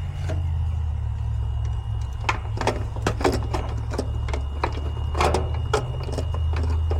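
Steady low mechanical hum with a series of small irregular clicks and metallic rattles, about two to three a second, starting about two seconds in, as hand tools work on a sheet-metal equipment panel.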